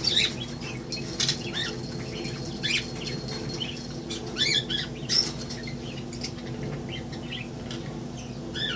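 Male budgerigar giving short chirps and squeaks, with scattered light taps and scuffles as he works against a toy in a mating display, over a steady low hum.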